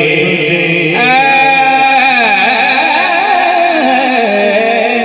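Male naat reciter singing an unworded, drawn-out melismatic phrase. A note is held steady about a second in, then wavers and ornaments up and down, amplified through a sound system.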